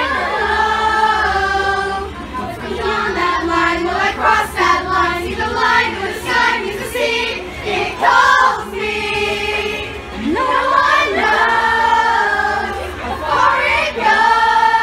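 A crowd singing together in chorus over backing music, with sustained sung notes and short breaks between phrases.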